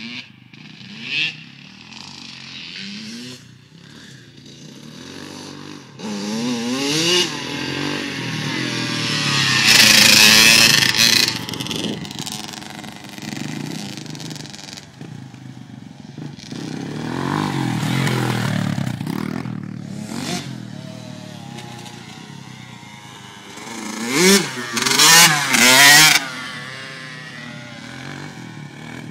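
Small dirt bike engines revving up and down as the bikes ride around a dirt track. The engines swell loudest as a bike passes close, about ten seconds in and again a few times around twenty-five seconds in.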